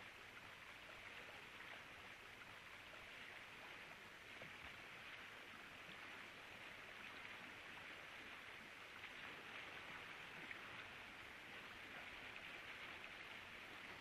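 Faint, steady hiss of soundtrack ambience, with no distinct events.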